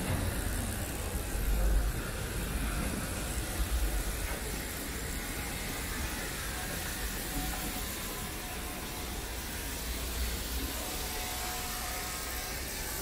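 Steady city street noise: a wash of traffic hiss over a low rumble, with no single event standing out.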